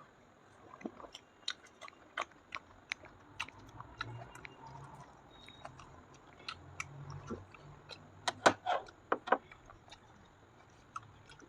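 Close-up chewing of soft fried kachori with chicken curry: a scattered run of wet mouth clicks and smacks, with a quick, louder cluster about eight to nine seconds in.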